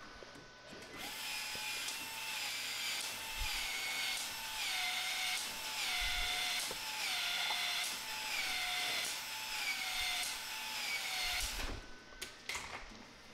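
Small battery-powered tool motor, most likely a PEX expansion tool expanding a pipe end for an Uponor ProPEX fitting. It runs about ten seconds with a high whine that dips in pitch and recovers about once every three-quarters of a second as the head cycles, then stops near the end.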